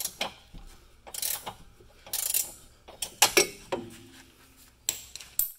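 Ratcheting wrench clicking in short, uneven runs as it works a bolt on a Ford Focus rear camber arm loose.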